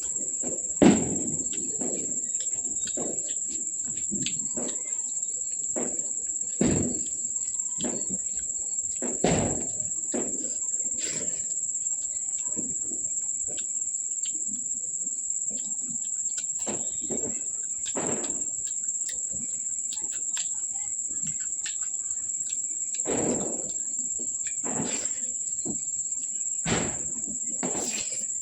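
A cricket trills steadily at a high pitch, over the intermittent chewing and mouth sounds of someone eating. A few sharp clinks or knocks stand out, about a second in, at about 7 s and at about 9 s.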